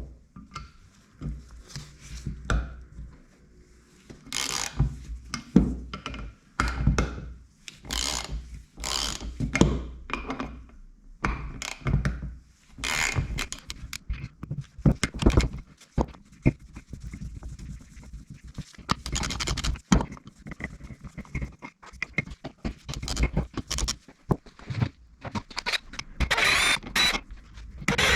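Hand tools and the metal housing of a Mercedes M113 V8 oil pump knocking, clicking and scraping irregularly as the pump is unbolted and taken apart.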